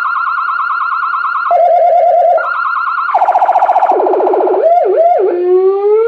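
AS820 200-watt electronic siren sounding through its speaker and stepping through its tones: a warbling tone that jumps between a high and a low pitch every second or so, a fast pulsing stretch, two quick up-and-down yelps, then a slow rising wail near the end.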